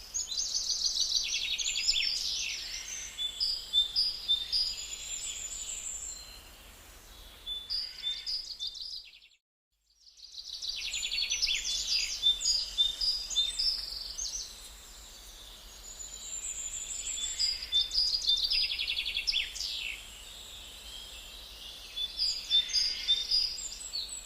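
Gouldian finches calling: repeated high chirps and quick trills, broken by a second-long gap in the sound near the middle.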